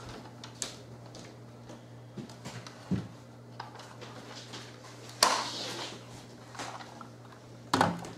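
Scattered small clicks and rustles of hands handling objects, the loudest a rustle about five seconds in and another just before the end, over a steady low hum.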